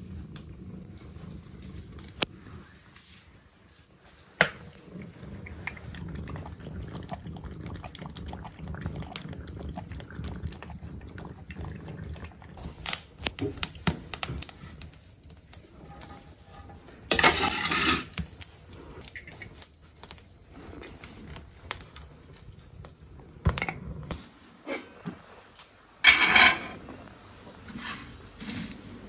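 Kitchen clatter at a wood-burning cookstove: scattered knocks and clicks, with two louder metallic clatters of pots being handled on the steel stovetop, one a little past halfway and one near the end.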